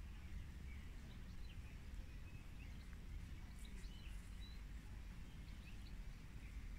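Faint outdoor background: scattered short chirps of small birds over a low, steady rumble.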